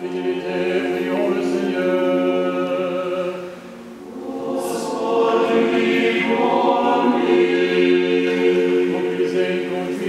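Orthodox church choir singing unaccompanied liturgical chant in sustained chords. One phrase ends about three and a half seconds in and the next begins a moment later.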